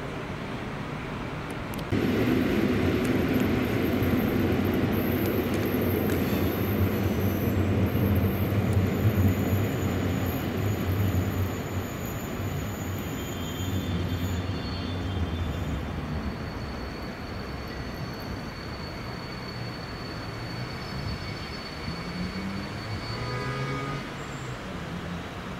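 SU42 diesel locomotive pulling a passenger train into a station: its engine drones low, with wheel-on-rail noise. The sound gets suddenly louder about two seconds in and eases after the middle, where a thin high squeal holds steady.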